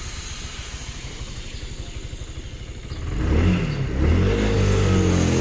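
Kymco X-Town 300 scooter's single-cylinder engine idling with a rapid pulse, then revved about three seconds in, the pitch rising and wavering up and down. This is the scooter with a hard-starting fault whose revs would only climb to about 6,000 rpm before it died.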